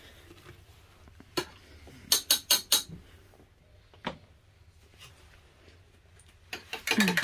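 A few light clicks and knocks from things being handled: one about a second and a half in, a quick run of four or five around two to three seconds in, and one more about four seconds in.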